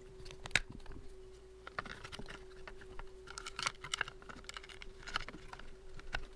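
Scattered light clicks and taps of a Graco airless paint sprayer's opened motor and pump assembly being handled and moved on a work table, with a faint steady hum underneath.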